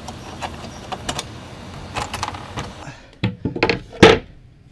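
Light metallic clicks of hex bolts being slid into the slot of an aluminium 80/20 extrusion, then a few sharp knocks and one loud thud near the end as plywood floor panels are handled on the aluminium floor frame.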